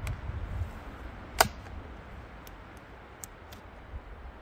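A sharp click about a second and a half in, then three faint ticks, over a low rumble. These are handling sounds from the chainsaw mill's hardware and chain as they are worked on by hand.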